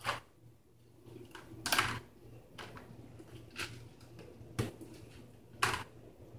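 Plastic food-storage containers and lids knocking and clattering as a baby handles them in a kitchen cabinet: a handful of separate light clicks and knocks, about one a second.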